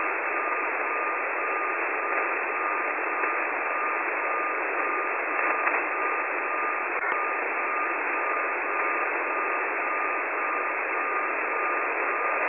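Shortwave radio tuned to an unidentified single carrier on 4635 kHz: an unmodulated carrier heard as a steady whistle-like tone over band-limited static hiss, dipping briefly now and then, with no voice on it. A faint click about seven seconds in.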